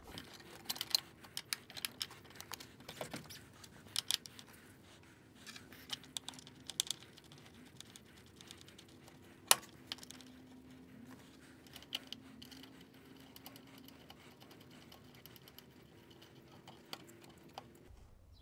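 Faint, scattered metallic clicks and taps of hand tools and terminal hardware as the cables are fastened to a newly fitted car battery, with one sharper click about halfway through.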